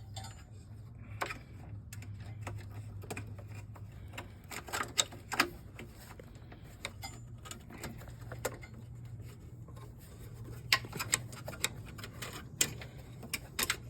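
Irregular clicks and knocks of hands working parts of a Toro walk-behind mower's self-propel drive cable and spring assembly back into place, coming in small clusters, over a low steady hum.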